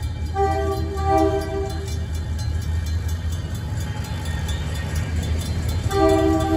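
CN 5331 diesel locomotive sounding its multi-chime air horn twice: a blast of about a second and a half near the start and another starting near the end, over the steady low rumble of its diesel engine. The crossing's Safetran hybrid bell dings steadily in the background.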